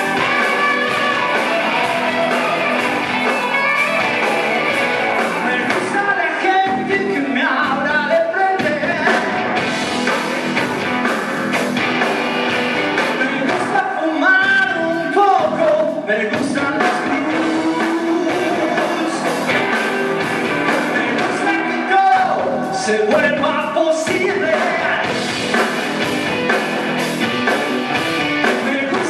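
Live rock band playing: electric guitars with sung vocal phrases over the band.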